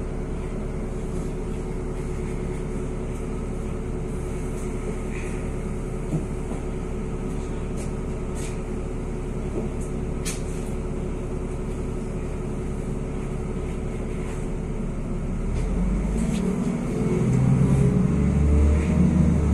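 NefAZ 5299 city bus heard from inside the cabin, idling at a standstill with a steady hum, then its engine pulling away and getting louder about fifteen seconds in.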